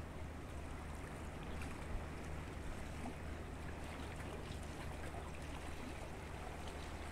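Seaside ambience: calm sea water gently washing and lapping among shoreline rocks, over a steady low hum.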